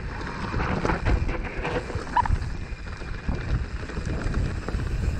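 Mountain bike rolling down a rocky gravel trail: tyres crunching and the bike rattling with frequent knocks over stones, with wind buffeting the microphone.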